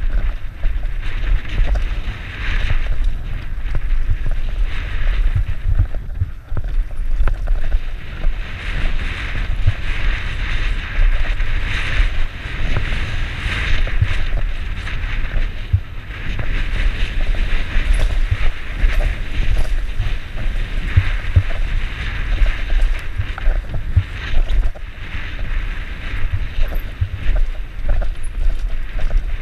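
Wind buffeting a helmet-mounted camera's microphone during a downhill mountain bike descent, over the rolling rattle of tyres and bike on a rocky dirt trail, with scattered clicks and knocks.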